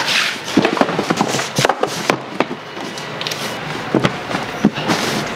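Packages being handled: a large cardboard box shoved across the floor and a fabric bag pulled out of another box, with rustling, scraping and irregular knocks and thumps.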